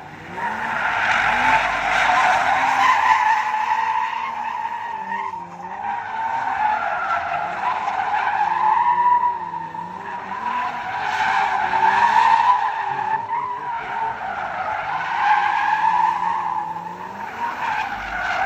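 A BMW E36 M3's 3.0-litre straight-six revs up and down while the tyres squeal without a break. The sound comes in about four long swells and stops abruptly at the end.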